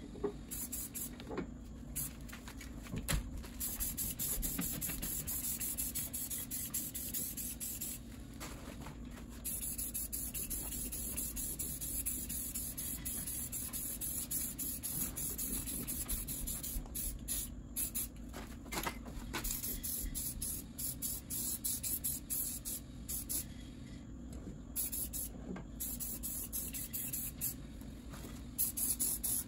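Aerosol spray paint can hissing in long bursts, broken by a few short pauses.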